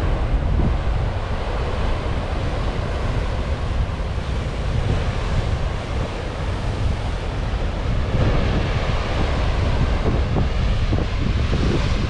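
Rough Atlantic surf crashing on shoreline rocks in a continuous wash of noise, with wind buffeting the microphone.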